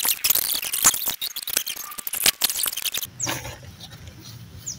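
Plastic sheeting crackling and rustling as hands scoop and work compost on it, a dense run of crisp crinkles. About three seconds in it gives way to a quieter steady hum with two short high chirps sliding downward.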